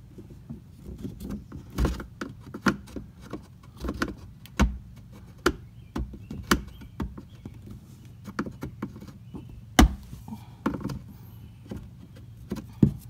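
Small screwdriver prying and wiggling a plastic push-in rivet out of the Sea-Doo Spark's plastic trim panel: irregular plastic clicks and taps, with one sharper knock about three-quarters of the way through.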